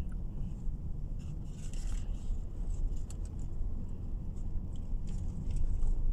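Car driving along a road, its steady low engine and tyre rumble heard from inside the cabin, with small rattling clicks over it.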